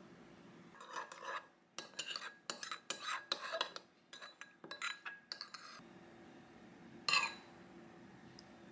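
A metal spoon stirring a liquid sauce in a small ceramic bowl, scraping and clinking against the bowl for about five seconds, then one more clink near the end.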